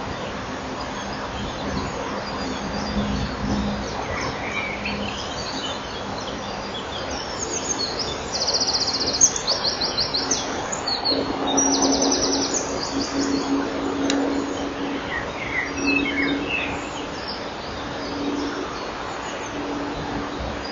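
Common kingfisher calls picked up inside the nest burrow: from about eight seconds in, several seconds of high, rapid trilling, with a few short chirps later. A steady hiss and a faint low hum run underneath.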